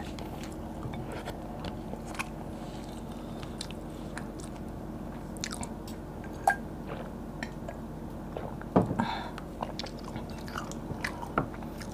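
Close-miked mouth sounds of an eater finishing a meal: soft chewing and lip smacks with scattered small clicks, and gulps of water from a glass a little past halfway.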